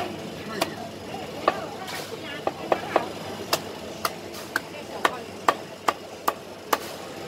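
Meat cleaver chopping poached chicken on a wooden chopping block. It makes sharp knocks, roughly two a second, in a fairly even rhythm.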